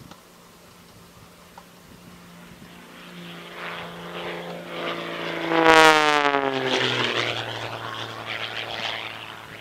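A fixed-wing aircraft flying past, growing louder over a few seconds, loudest about six seconds in, then fading as its engine note drops in pitch.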